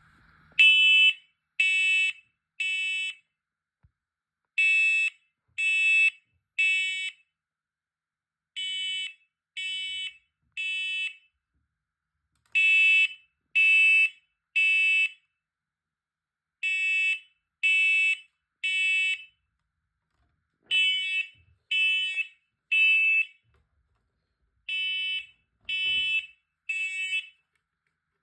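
Smoke alarm going off after a spray of aerosol test smoke, sounding the fire-alarm pattern: three high-pitched beeps about a second apart, then a pause, repeated every four seconds.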